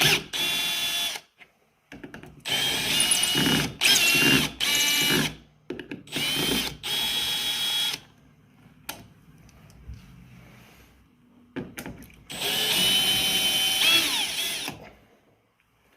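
Power drill backing the old screws out of a door hinge, running in short bursts several times with a longer run near the end. Each run has a high motor whine that rises as it spins up.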